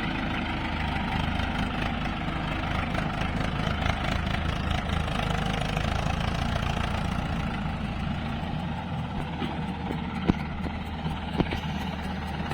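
Heavy diesel machinery engine running steadily, with two sharp knocks about a second apart near the end.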